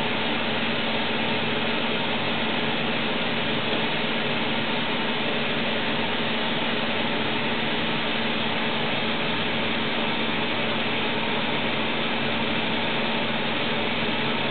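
Toshiba Machine ULC100S ultra-precision NC lathe running steadily on its test run: an even whirring hiss with a constant hum underneath.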